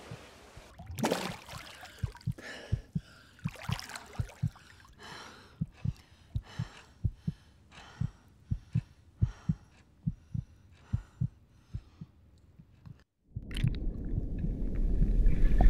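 A fast heartbeat of low thuds, about two a second, with heavy, open-mouthed panting breaths over it, as from an exhausted swimmer. About 13 s in it cuts to a loud underwater rumble.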